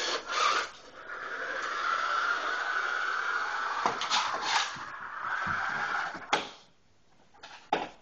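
Toy remote-control car's small electric motor and gears whirring steadily as it drives across the floor, with a few knocks, until it stops about six and a half seconds in.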